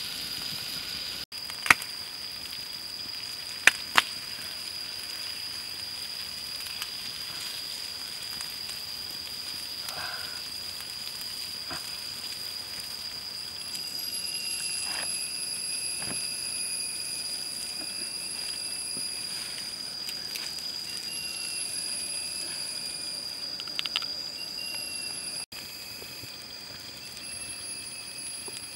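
Squid and chillies sizzling and crackling on a hot stone over a wood fire, with a few sharp clicks of wooden chopsticks on the stone in the first few seconds. A steady high-pitched whine runs throughout.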